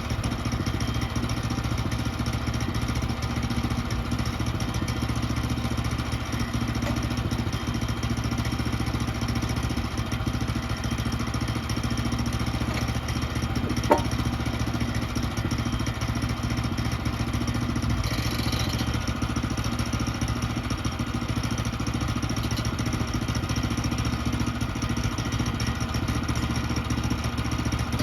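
Woodland Mills HM122 portable bandsaw mill's small gas engine running steadily, with a single sharp click about halfway through.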